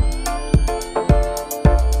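Background electronic music with a steady beat: a kick drum about twice a second, ticking hi-hats and held synth chords.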